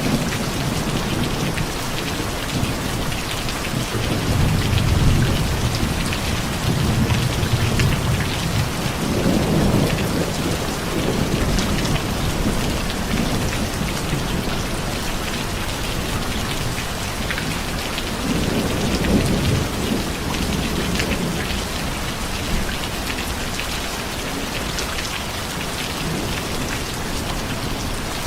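Steady rain falling, with low rumbles of thunder swelling and fading three times: a long one from about four seconds in, another near ten seconds, and a shorter one just before twenty seconds.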